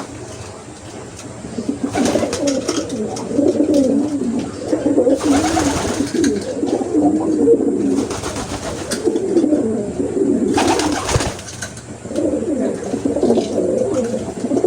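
Many racing pigeons cooing together in a loft, in overlapping, wavering calls, with a few short rustling bursts at intervals.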